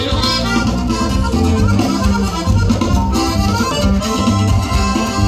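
Norteño band playing live, with the accordion leading an instrumental passage over a steady bass line.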